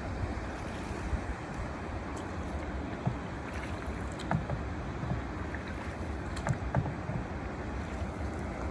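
Canoe paddling on a lake: water sloshing and dripping against the paddle and hull, with scattered small splashes and knocks, over a steady low wind rumble on the microphone.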